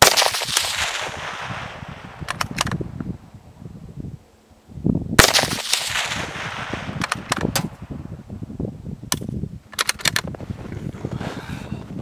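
Two rifle shots about five seconds apart, each fading out in a long echo, with short runs of sharp clicks in between.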